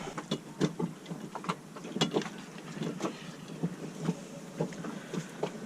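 Irregular metallic clicks and knocks of hand tools working at the sprocket inside an Edson steering pedestal, trying to move it on a shaft where it is jammed on its keyway.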